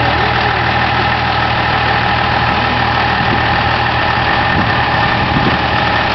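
Pickup truck engine idling steadily, with no revving.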